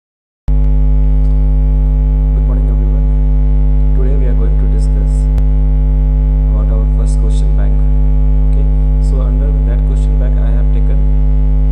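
Loud, steady electrical mains hum, a low buzz with many overtones, starting about half a second in.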